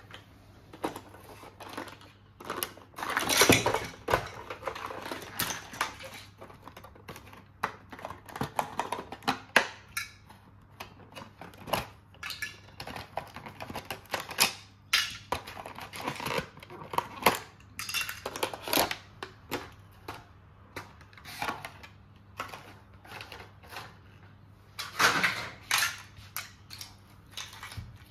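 Small hard plastic toy pieces clicking and clattering at irregular intervals as a miniature toy set is unpacked by hand, with a few longer rustles of packaging.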